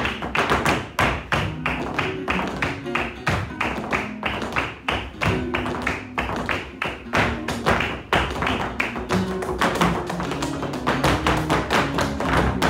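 Flamenco dance footwork: hard-soled flamenco shoes striking the floor in quick, rhythmic heel-and-toe taps. Underneath runs flamenco music in the 12-beat compás used for jaleo and bulerías.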